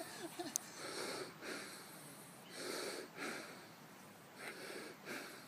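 A person breathing close to the microphone, soft in-and-out breaths in pairs that repeat about every second and a half to two seconds.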